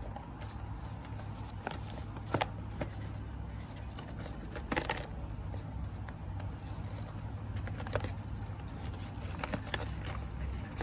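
Scattered light clicks and crinkles from a wireless-earbud box and its plastic wrapping being handled, over a steady low hum.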